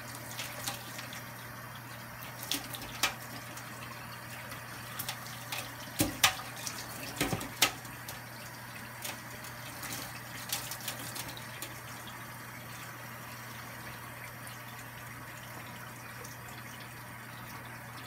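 Kitchen faucet running steadily into a stainless steel sink while an African grey parrot bathes under the stream, with sharp splashes and spatters as it flaps and shakes its wet feathers. The splashes are loudest a little before the middle and die away, leaving only the running water near the end.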